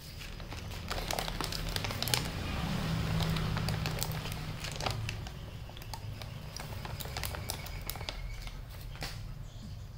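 A cat crunching dry kibble, a run of small irregular crunches and clicks as it chews and noses through the pellets in a plastic tub.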